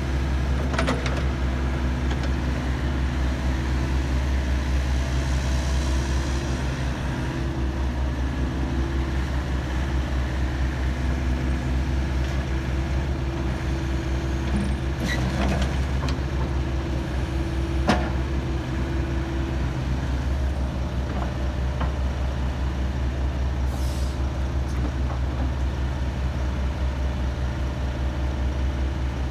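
2016 Hitachi ZX85USB-5A midi excavator's diesel engine running steadily while the boom, arm and bucket are worked. A few sharp knocks are heard along the way, and a short hiss near the end.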